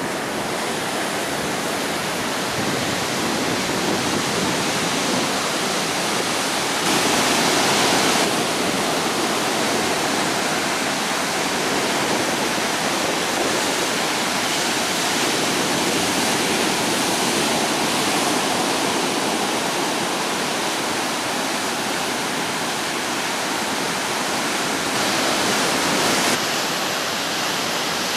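Ocean surf washing up the beach, a steady rushing noise that swells louder twice, about seven seconds in and near the end.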